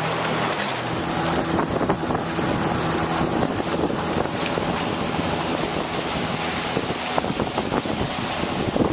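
A boat's engine runs steadily, with wind buffeting the microphone and the rush of water.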